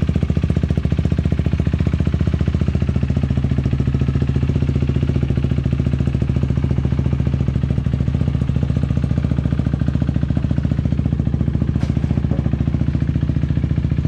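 KTM Duke 390's single-cylinder engine idling steadily on its first start after a rebuild, with a faint click near the end.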